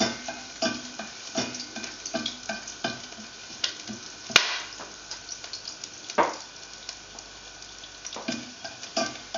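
Chopped garlic sizzling in hot oil in a nonstick sauté pan as it is stirred and fried toward golden brown, with frequent scrapes and taps of the spatula against the pan. Two sharper knocks stand out, about four and six seconds in.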